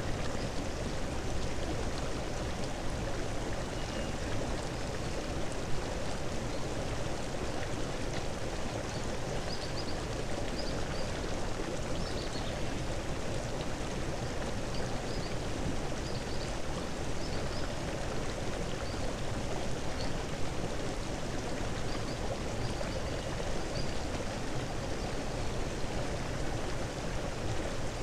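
Steady rushing noise like running water, even throughout, with a few faint short high ticks in the middle.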